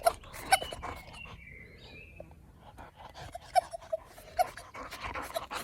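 Young boxer dog panting, with short squeaks and a few clicks mixed in.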